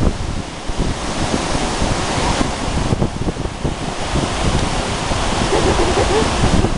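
Ocean surf breaking and washing up the shore in a continuous rush, with wind buffeting the microphone.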